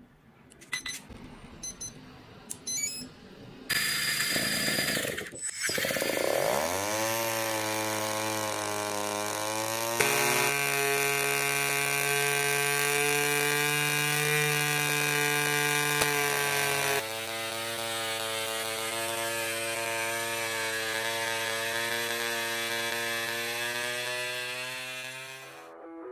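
A few clicks, then a small electric motor spinning up with a quickly rising whine. It holds a steady pitch for about twenty seconds, shifting slightly twice.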